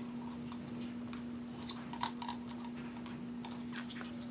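A few faint plastic clicks and scrapes as the small propellers of a mini quadcopter are pried off their motor shafts with a small metal tool, coming around the middle and again near the end. A steady low hum runs underneath.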